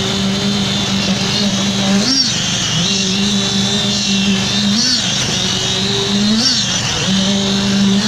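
Small petrol engine of a concrete poker vibrator running steadily while the vibrating poker is worked into fresh concrete, its pitch briefly rising and dipping three times.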